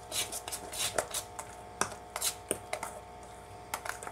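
Metal spoon clinking and scraping against a stainless steel bowl while stirring thick semolina and mango batter, in irregular strokes two or three a second.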